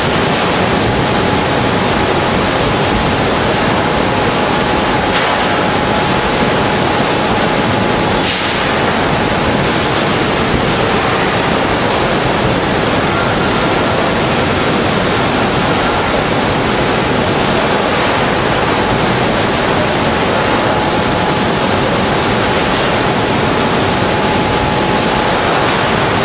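Magnesium wire treatment station at work: a loud, steady rushing noise as magnesium wire is fed into a ladle of molten iron to make ductile iron. A faint steady whine runs underneath, and one sharp crack comes about eight seconds in.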